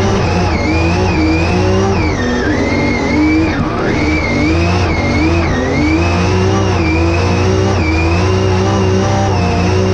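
Drift car's engine at high revs, heard from inside the cabin, its pitch dipping and climbing again and again as the throttle is worked through the corners, with the tyres sliding.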